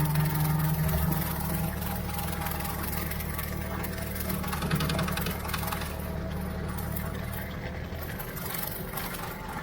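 Ford 3600 tractor engine running at a steady speed, driving a Brush King rotary (bush hog) mower.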